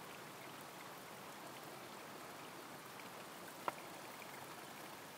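Homemade bamboo shishi-odoshi working over a trickling stream: water runs steadily, and about two-thirds of the way through the bamboo tube knocks once with a single sharp clack as it tips.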